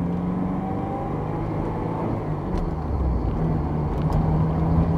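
Porsche 944's four-cylinder engine running, with low road rumble, heard from inside the cabin as the car picks up speed.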